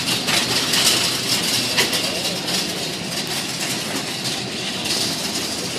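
Shopping carts and busy store clatter: a steady rattling noise dotted with many small clicks and knocks, carts rolling over a tile floor.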